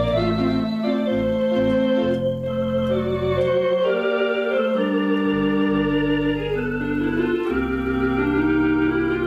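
Conn 650 electronic theatre organ playing a show tune: held chords under a moving melody, with low pedal bass notes that drop out for a moment about halfway through.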